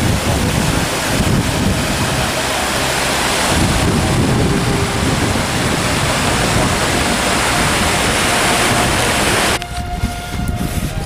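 Mountain stream rushing and splashing over boulders in a steady, loud rush. Near the end it cuts off suddenly and music with held tones takes over.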